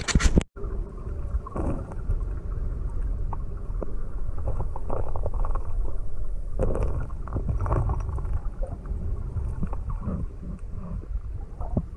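A few sharp knocks at the very start. Then the muffled rush of flowing river water picked up by a camera held underwater: a steady low rumble with irregular sloshing surges.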